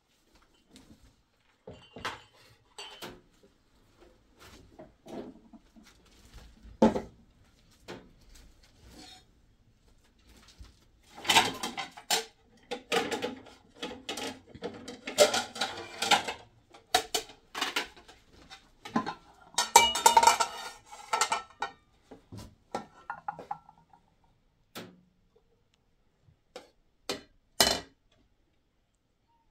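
Dishes and utensils being handled: scattered clinks and knocks, with two busy stretches of clatter about eleven to seventeen seconds in and again around twenty seconds in.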